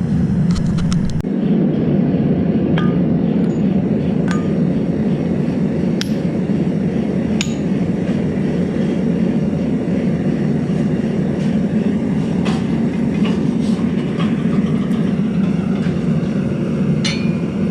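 Forge burner running with a steady, loud rushing noise while melting aluminum for a casting. A few light metallic clinks sound now and then over it.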